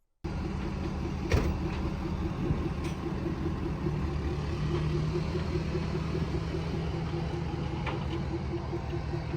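A motor vehicle driving on the road, its engine and tyres making a steady rumble with an even, repeating pulse and a few faint knocks.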